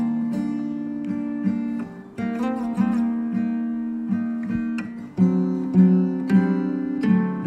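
Background music played on guitar: chords ring on and change about every three seconds.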